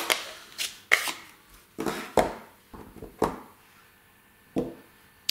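Plastic ink pad case and a clear acrylic stamp block handled on a table: the block tapped onto the ink pad to ink it and pressed onto paper, giving a series of irregular light clicks and knocks.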